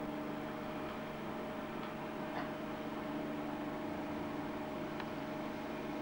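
Steady background hum and hiss with a faint constant tone, and a couple of faint clicks; no voice.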